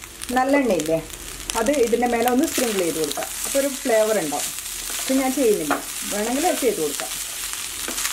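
Egg fried rice sizzling as a wooden spatula stirs and tosses it in a non-stick pan, a steady hiss with small scraping clicks. Short, wavering pitched phrases come and go several times over it.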